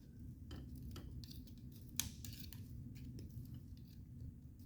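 Faint, scattered metal clicks and scraping from a hand tool prying at the small parts and tabs of a car's vent window assembly, with one sharper click about two seconds in.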